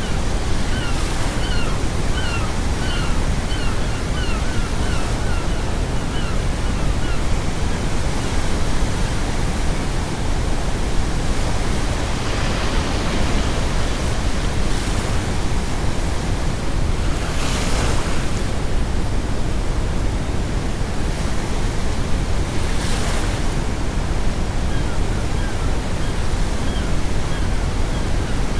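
Sea waves washing on a shore over a steady deep brown-noise hiss, with surges every few seconds. A seagull calls in a quick run of short cries, about two a second, for the first several seconds and faintly again near the end.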